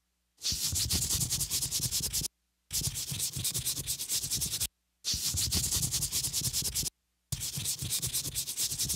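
Logo sound effect of harsh, scratchy noise with a fast rattling grain, coming in four spells of about two seconds each. Each spell starts sharply and cuts off abruptly, with short silent gaps between them.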